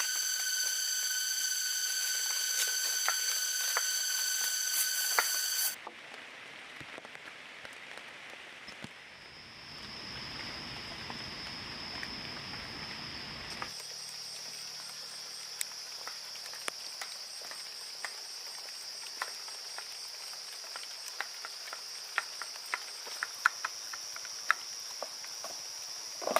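Insects droning steadily with a stack of high tones, cut off abruptly about six seconds in. A quieter single high insect trill follows, with scattered small clicks and rustles.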